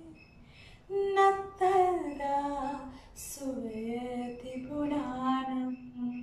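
A woman singing a Sinhala song solo, starting about a second in after a short breath, with long notes that slide in pitch and a final low note held to the end.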